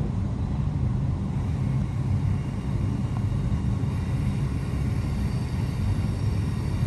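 Steady low rumble of a train at or passing the platform, with faint high steady tones coming in during the second half.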